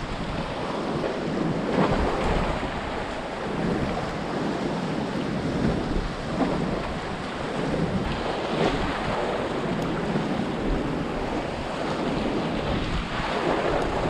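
Sea waves washing and splashing among the concrete tetrapods of a breakwater, in soft repeated surges, with wind buffeting the microphone.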